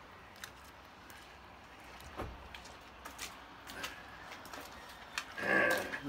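Faint footsteps on wet, snow-dusted pavement with scattered light clicks, and a short voice sound near the end.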